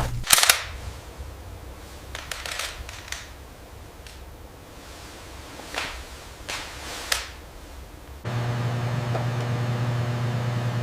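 Several sharp cracks, the loudest just after the start and fainter ones scattered through the middle, then a steady machine hum that starts abruptly about eight seconds in.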